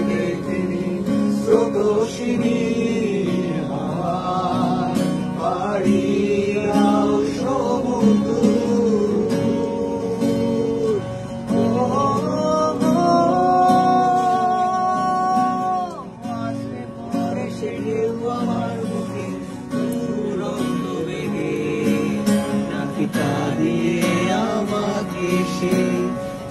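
Acoustic guitar accompanying a male voice singing a slow Bangla song, with one long held note about halfway through.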